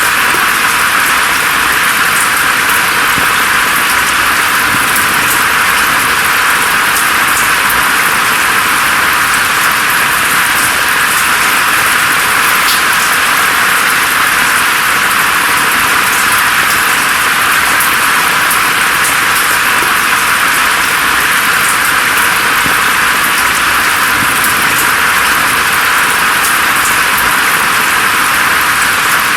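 Steady rain falling, a dense even hiss with faint patter of single drops. The sound is bright and thin, with almost no low rumble.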